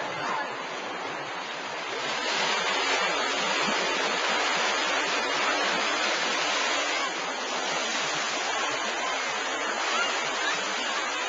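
Wave-pool wave breaking and washing across the shallows as foaming whitewater: a steady rush of water that swells about two seconds in.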